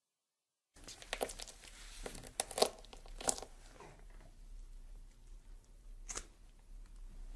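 Horror sound effect of irregular sharp cracks and crinkling, like something being torn or crushed, starting after a moment of dead silence; the cracks come thick for a couple of seconds, then one more stands alone about six seconds in, over a faint low hum.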